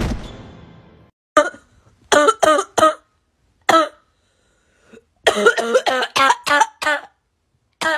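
A woman coughing in hoarse, voiced bouts: a single cough, a quick run of about four, another single cough, then a longer run of about seven, with one last cough at the very end.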